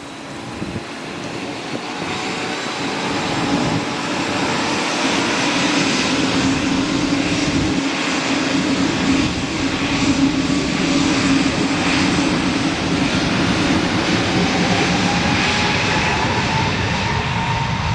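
Jet engines of an Airbus A320-family airliner, growing louder over the first few seconds and then holding at a steady, loud level, with a whine that rises slightly near the end.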